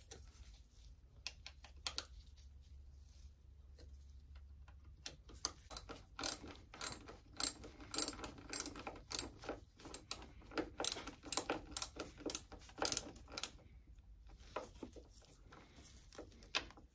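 Socket ratchet clicking in quick runs as a motorcycle handlebar lever's pivot bolt is tightened from underneath. The clicking gets going about five seconds in and dies away a few seconds before the end.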